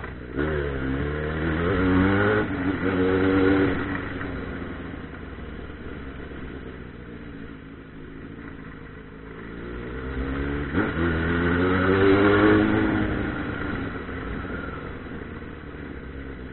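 Yamaha XJ6's 600 cc inline-four engine pulling in low gear, rising in pitch near the start and again about eleven seconds in after a brief drop, and easing off in between.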